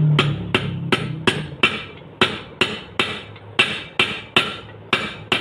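Metal hammer blows on a steel pipe sleeve, driving a ball bearing down onto a motorcycle crankshaft: sharp ringing metallic taps, about three a second.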